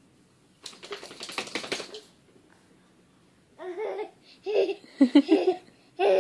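Baby laughing in a run of short bursts through the second half. About a second in there is a breathy noise lasting just over a second.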